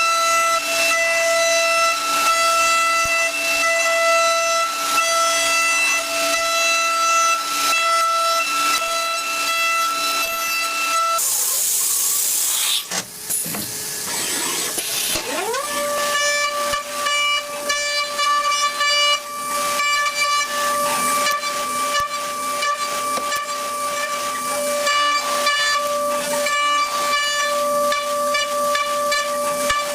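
A CNC machining centre's spindle is whining at a steady pitch, with fast irregular ticking from the cut. About eleven seconds in the whine stops and there is a loud burst of hiss. A few seconds later the spindle whine rises in pitch and settles at a steady pitch slightly lower than before, and the ticking carries on.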